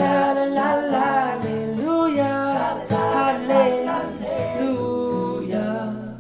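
Song playing: a man singing over acoustic guitar. Near the end the singing stops and a held chord is left ringing.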